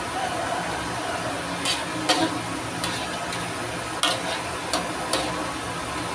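A perforated metal spatula stirring fish in yellow broth in an aluminium wok, clinking sharply against the pan about eight times at an uneven pace. A steady hiss runs underneath.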